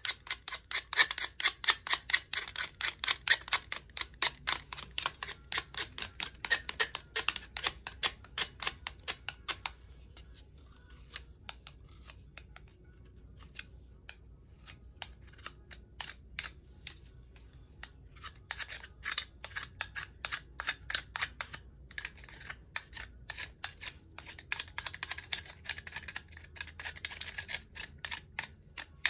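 A hand tool clipping and cleaning tulsi twigs: a rapid run of sharp clicks and snips, several a second, dense for the first ten seconds, sparse for a while, then dense again from about eighteen seconds until near the end.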